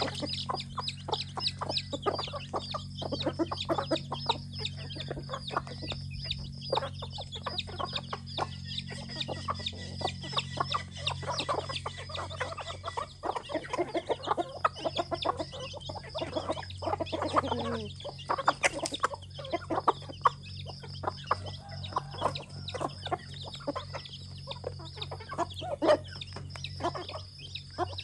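Chickens clucking, a mixed flock of roosters and hens calling in many short clucks throughout. About seventeen seconds in, one longer call slides down in pitch.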